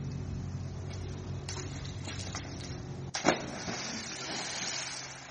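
A person plunging into a swimming pool: one loud splash about three seconds in, followed by a couple of seconds of spraying and falling water.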